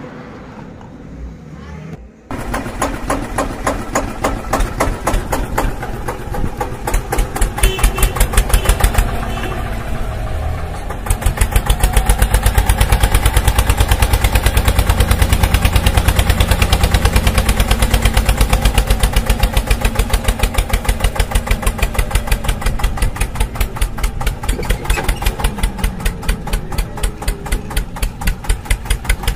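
Diesel tractor engine sound, chugging in a quick, even beat. It starts about two seconds in and grows louder about eleven seconds in.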